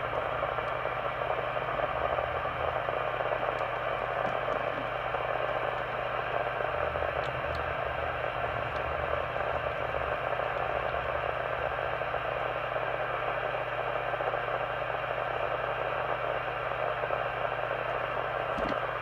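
Steady receiver hiss from an FM CB radio on test, with a few faint clicks as a trimming tool turns the IF transformer cores during alignment.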